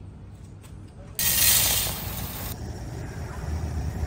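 A sharp burst of hiss that starts about a second in and stops abruptly a second and a half later, over a steady low rumble.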